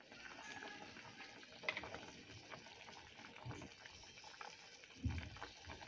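Faint bubbling of a pot of chicken and vegetable soup at the boil, with light ticks and a few soft knocks, the loudest near the end.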